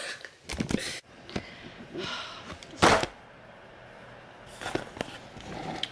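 Handling noise from a phone camera being fumbled: a few clicks and rustles, then one sharp knock about three seconds in, the loudest sound.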